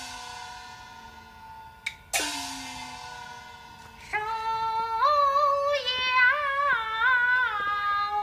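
Chinese opera music: a gong struck twice, each strike ringing with a falling pitch, with a sharp woodblock click between them, then a woman's voice begins singing an aria with wide vibrato about four seconds in.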